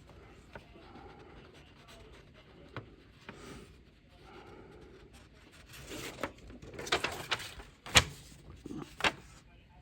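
Plastic clicks and rattling from a Honeywell CD200A smoke alarm's cover being worked off the base by hand, with two sharp snaps near the end.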